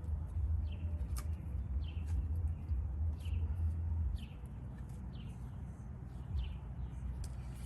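A bird calling with short, falling chirps, about one a second, over a low steady rumble that eases off about four seconds in.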